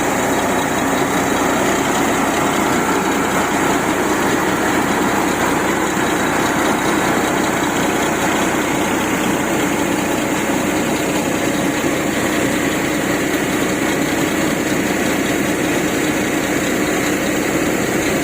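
An engine running steadily at a constant speed, a continuous even drone that does not change.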